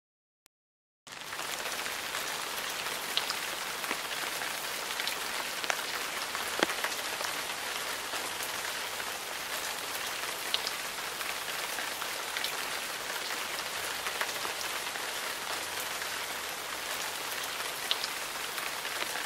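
Steady rain falling, a constant patter with scattered louder single drops, starting about a second in.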